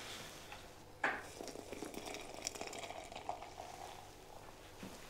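A sharp click about a second in, then water poured from a plastic electric kettle into a glass jar, a thin stream splashing into it.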